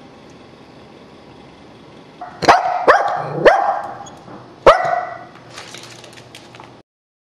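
Small shaggy terrier barking: four sharp barks between about two and a half and five seconds in, each falling slightly in pitch.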